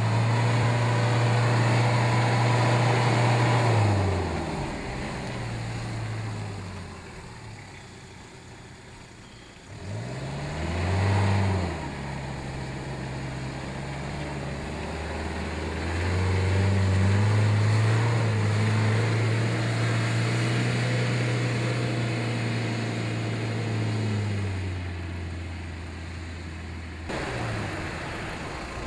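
Hyundai Galloper short-body 4x4's engine working through deep mud. The revs rise and fall: held high at first, dropping off about four seconds in, a short sharp rev near eleven seconds, then held high again for several seconds before easing off.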